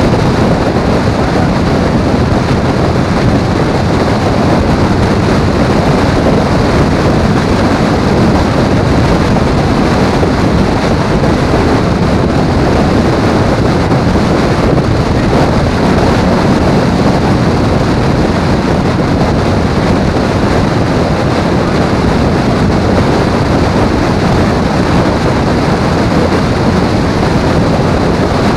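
Steady, loud wind rush and road noise over the microphone of a camera on a moving motorcycle at road speed.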